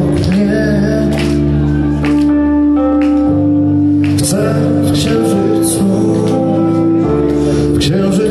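A live band playing on stage, heard from the audience: electric guitar, bass and drums with long held melody notes over a steady beat.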